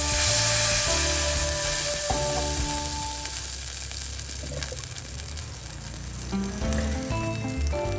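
Water poured into a hot stainless saucepan of fried eggplant, hissing and sizzling loudly as it hits the hot pan, the sizzle fading away over the next few seconds. Background music plays throughout.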